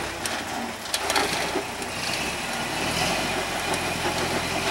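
Lifted Toyota 4Runner's engine running at low speed under load as the truck crawls over granite boulders, getting louder and steadier about three seconds in. A few sharp knocks come about a second in.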